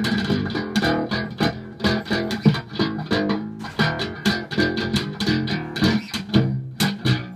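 One-string bass with a pickup, slapped hard through a Marshall 4x12 guitar cabinet: a rapid run of sharp, percussive slapped notes, several a second, with the pitch moving between notes.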